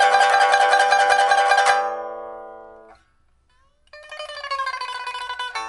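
Pipa with a steel first string and copper lower strings, a 2012 Man Ruixing African rosewood instrument freshly re-topped and re-fretted after repair, played in a rapid tremolo on a chord that rings on and fades out about two seconds in. After a short pause a new note is struck and bent so its pitch slides downward, and a fresh stroke sounds near the end.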